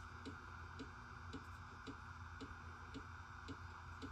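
Faint steady ticking, about two ticks a second, like a clock, over a low steady hum.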